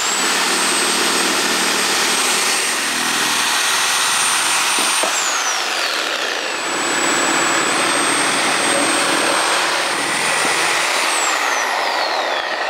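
Corded reciprocating saw cutting through a thick Douglas fir beam, running loud and steady. Its high motor whine falls in pitch about five seconds in, picks up again, and falls once more near the end.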